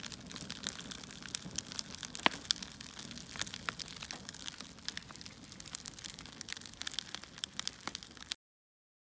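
Wood fire crackling: irregular sharp pops and snaps over a soft hiss, cutting off suddenly near the end.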